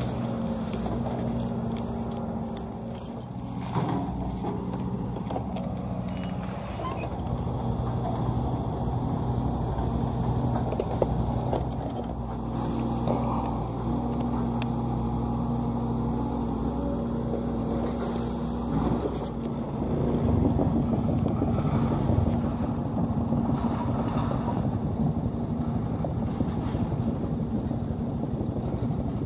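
Sumitomo SH130LF crawler excavator's diesel engine running with a steady hum while the machine works. About two-thirds of the way through, the sound becomes louder and rougher as the engine works harder. A few sharp knocks are heard along the way.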